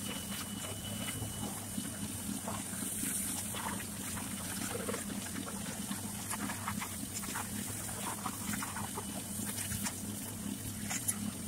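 Pressure washer running: a steady low hum from its motor and pump under the hiss and spatter of the high-pressure water jet hitting the truck's body and the ground.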